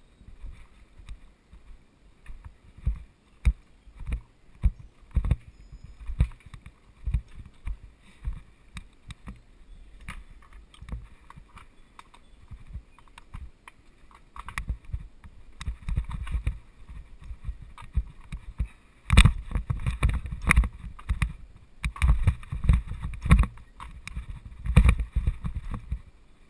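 Mountain bike riding over a bumpy dirt singletrack, the bike rattling and thumping irregularly over roots and ruts. The knocks grow busier and louder about three quarters of the way through.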